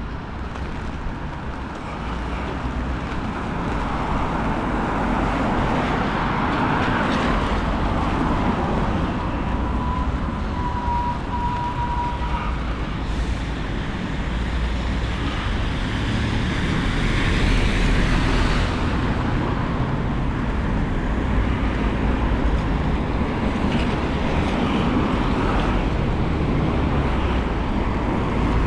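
Road traffic passing on a wet town street, with gusts of wind rumbling on the microphone. About ten seconds in there is a short, steady whistle-like tone, and traffic swells louder a little past halfway.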